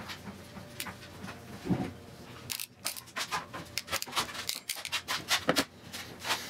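Small clicks and rustles from handling a stepper motor's lead wires and a plastic connector, coming thickest in the second half.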